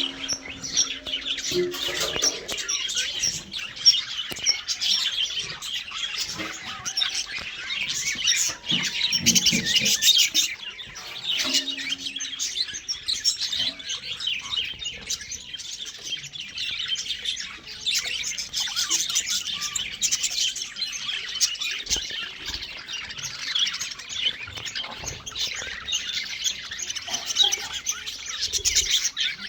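A colony of budgerigars chattering and chirping together, with many overlapping high twitters that go on without a break.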